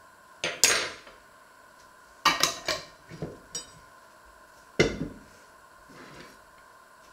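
Glass pickle jar and a fork being handled: several clinks of metal on glass as the lid is put on the jar. Just before five seconds comes the loudest, deepest knock, as the jar is set down on the wooden cutting board.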